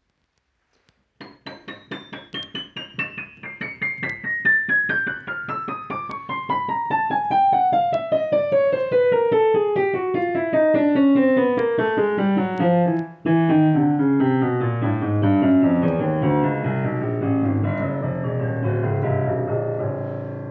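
Yamaha Clavinova CLP-950M digital piano playing a descending run of single notes, starting about a second in at the top of the keyboard and stepping steadily down to the bass, with a brief break about thirteen seconds in. The low notes ring on and overlap near the end.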